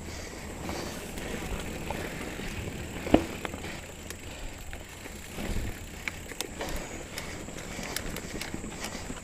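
Trek Remedy 7 mountain bike ridden over a dirt trail: steady tyre noise with scattered rattles and clicks from the bike, a sharp knock about three seconds in and a few thumps a couple of seconds later as it hits bumps.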